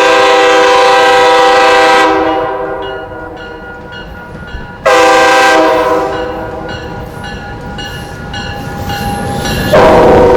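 Diesel locomotive horn sounding a chord of several notes in three blasts: one of about two seconds at the start, a shorter one about five seconds in, and another starting near the end. A grade-crossing bell rings steadily in the gaps.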